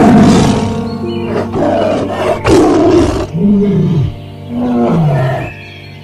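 Loud calls from a large farm animal over background music: two rough, noisy calls, one at the start and one about two and a half seconds in, then two shorter calls that rise and fall in pitch.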